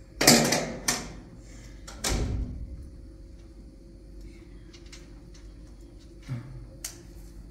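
A few sudden knocks: a loud one just after the start, a lighter one about a second in and another heavy one about two seconds in, then a couple of faint clicks near the end.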